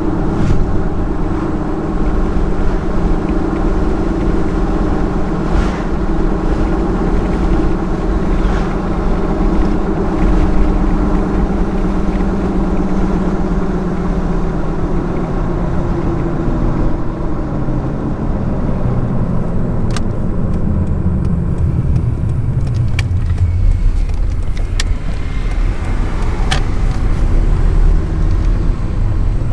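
1999 Toyota Tacoma's 3.4-litre V6 and road noise heard from inside the cab while driving. The engine's drone holds steady, then drops in pitch about halfway through as the truck slows. A few sharp clicks come near the end.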